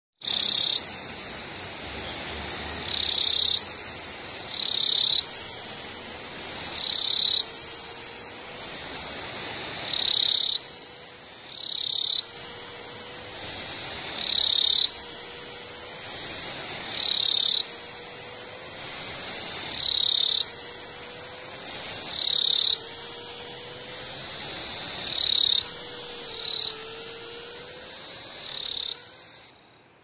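Cicada singing: a loud, steady, high-pitched buzz that dips briefly in pitch every two seconds or so, then cuts off suddenly near the end.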